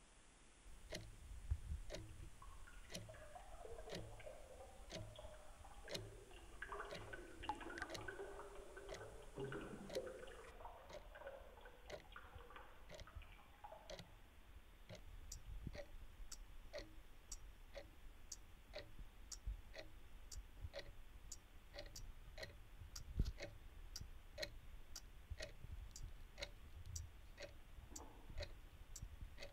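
Clock ticking steadily, about two ticks a second, with low irregular thuds and one louder knock about two-thirds of the way through. A wavering, warbling tone drifts in about two seconds in and fades out about halfway through.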